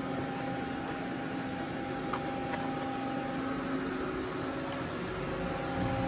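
Steady hum of machine-shop machinery around an idle CNC machining centre, holding several fixed tones, with two faint clicks about two seconds in.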